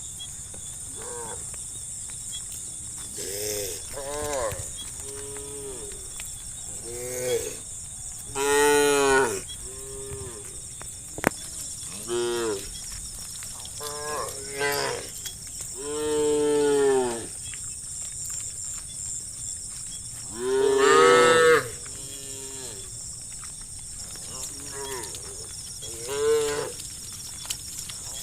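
A herd of cows mooing again and again, many short calls and several long loud ones, each rising and then falling in pitch. A steady high-pitched drone runs underneath.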